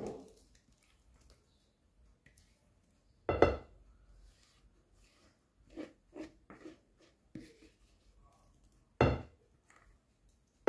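Kitchenware knocking on a glass baking dish full of semolina cake batter: two sharp knocks with a short ringing, about three seconds in and near the end, and a few softer knocks between them.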